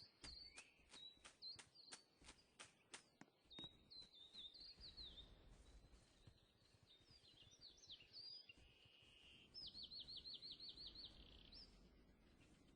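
Faint bird chirps and song, with a quick trill of about five notes a second near the end. A series of sharp clicks, about three a second, runs through the first three seconds or so.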